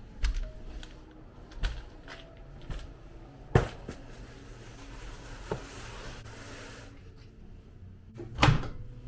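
Household things being handled during cleaning up: a series of separate knocks and clunks, the loudest about three and a half seconds in and another strong one near the end, with a soft hiss for a few seconds in between.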